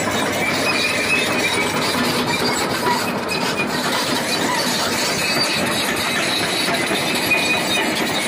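Komatsu PC220-7 excavator running with its six-cylinder diesel engine, the boom and bucket working on the hydraulics, with high metallic squeaks coming and going. The engine is now taking throttle, its no-acceleration fault bypassed with a direct wire connection.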